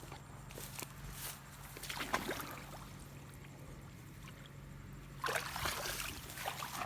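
Shallow water sloshing and splashing in two short bursts, about two seconds in and again about five seconds in, as water is disturbed while checking an eel trap.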